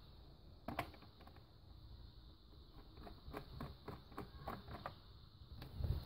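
Faint clicks and ticks of a screwdriver working the small screws of a laptop's plastic underside cover, one sharper click about a second in and a run of small ticks a little past halfway.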